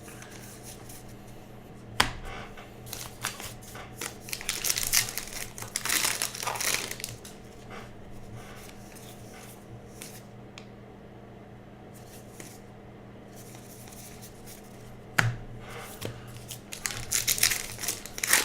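Baseball card pack wrappers crinkling and tearing open, in bouts of rustling, with a sharp click about two seconds in and another near the end.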